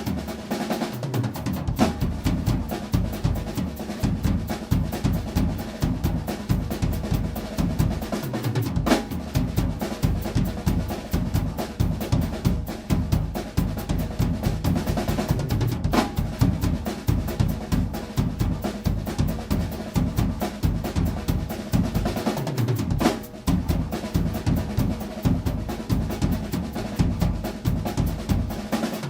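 Acoustic drum kit played in a fast, busy solo: a dense stream of rapid bass drum and snare strokes, with rolls and rimshots.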